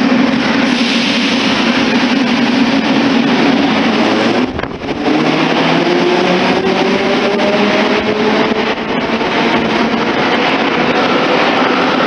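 Metro train pulling out of an underground station, its electric traction motors whining as it gathers speed. A steady low hum dips briefly about four and a half seconds in, then several whine tones climb slowly in pitch.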